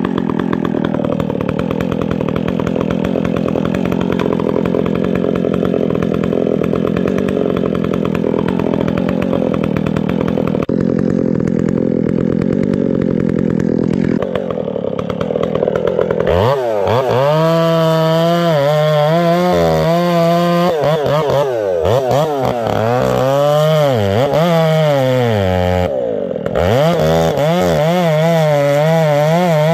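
Chainsaw running at high revs throughout. From about halfway it is cutting into a tree trunk, and its engine note sags and recovers over and over as the square hand-filed chain bites into the wood, with one deeper bog near the end.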